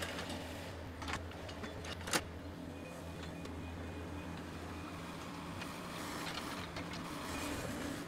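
Compact excavator's diesel engine running steadily as it works, with two sharp knocks of logs being handled about one and two seconds in.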